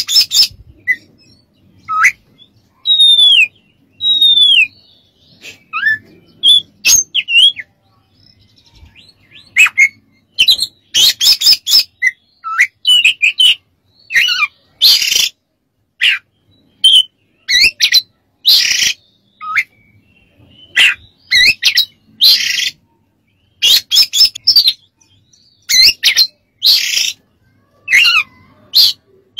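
Oriental magpie-robin singing a varied song of clear whistled notes that slide up and down, mixed with harsh, scratchy notes, in quick phrases broken by short pauses.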